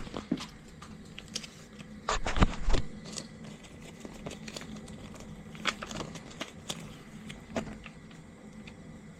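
Tools and gear being handled and put away: scattered light clicks and knocks, with a louder clatter of thumps about two seconds in, over a steady low hum.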